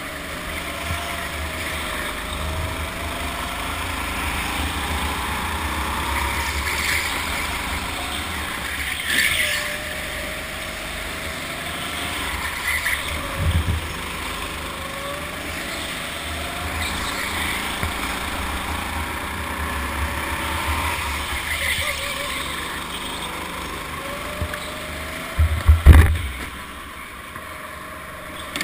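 Go-kart running laps on an indoor track: a steady rumble under a whine that rises and falls over and over. A knock about halfway through, and a cluster of loud sharp knocks near the end.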